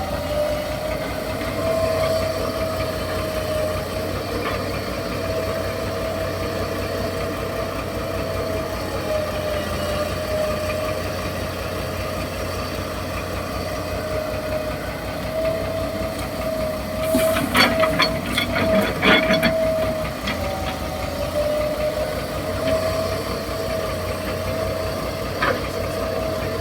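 Hitachi EX200-2 excavator engine running steadily with a high whine that wavers in pitch. About two-thirds of the way through comes a short burst of loud clattering knocks.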